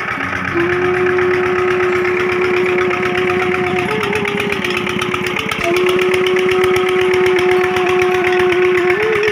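Single-cylinder stationary diesel engine running steadily, belt-driving a tube-well water pump, with a fast even firing beat. A slow bamboo flute melody plays over it in long held notes.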